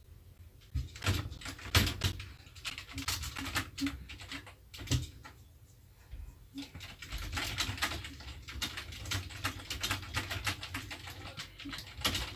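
Typing on a computer keyboard while writing an email: quick, irregular key clicks, easing off for a moment about halfway through before picking up again.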